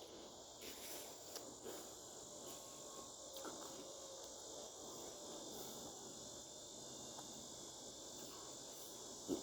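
Faint, steady high-pitched chirring of crickets, with a few small clicks and one sharp tap just before the end.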